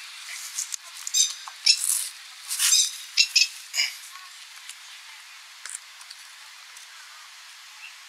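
Masked lapwing calling: several short, high, stuttering calls in quick succession between about half a second and four seconds in, then only a faint background.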